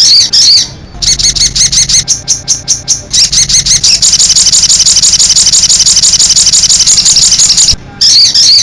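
A caged songbird known to Indonesian bird-keepers as sogon, singing in full voice (gacor). Bursts of high chirping notes give way about three seconds in to a long, very rapid, even trill. The trill breaks off shortly before the end, and the bird starts another phrase.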